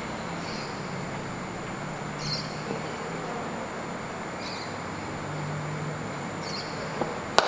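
Steady open-air ambience with a short high bird chirp about every two seconds, then a single sharp crack near the end: a cricket bat striking the ball.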